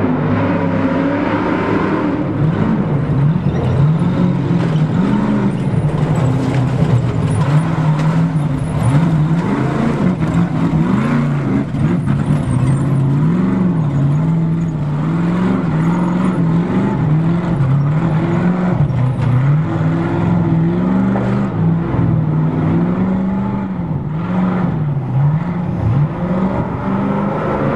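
Off-road Trophy Truck race engines revving hard through a rocky wash. The engine pitch swings up and down again and again as the throttle is worked over rough ground.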